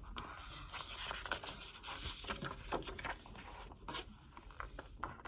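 Paper rustling and scraping with small clicks: the pages of a paperback picture book being handled and turned.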